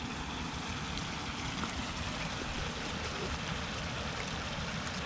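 Steady rushing of running water, even and unbroken, with a few faint ticks.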